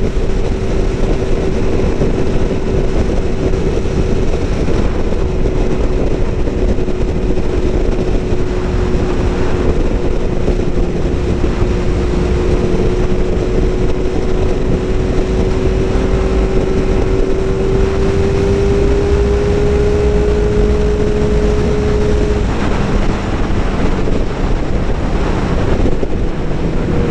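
Motorcycle riding at speed: heavy wind noise on the microphone over a steady engine drone. The engine note rises slightly and then drops away about 22 seconds in.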